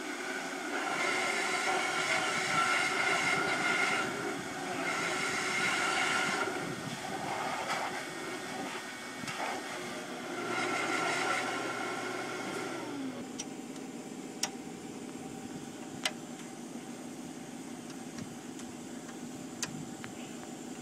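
Shop vacuum run as a blower, its motor running while air is blasted through the locomotive's smokebox in several surges. About 13 seconds in it is switched off and winds down, falling in pitch. This is followed by a few sharp clicks of metal fittings being handled.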